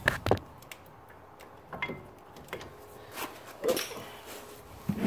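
Brake caliper being slid over the new pads into its bracket on a 2015 Volvo S60's front brake: two sharp metal clicks right at the start, then a few scattered, lighter clicks and knocks as it settles into place.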